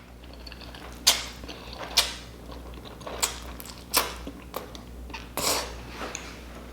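Close-miked eating sounds from a bowl of 2x spicy noodles: sharp wet mouth smacks and clicks about once a second while chewing, with one longer, rougher mouth sound about five seconds in.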